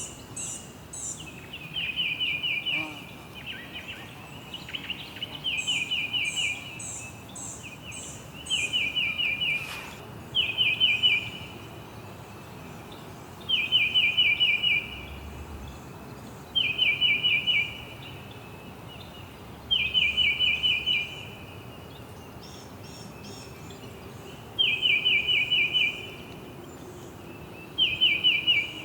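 Birdsong: a bird repeating a short phrase of five or six quick chirps, about every three seconds, at times answered by a fainter, higher series of chirps, over a steady background hiss.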